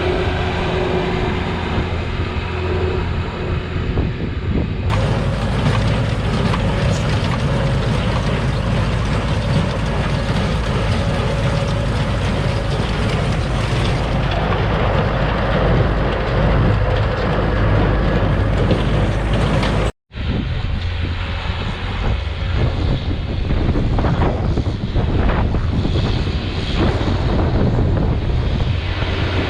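Tractor engine running steadily with a deep rumble. The sound changes abruptly about five seconds in and cuts out for an instant about twenty seconds in.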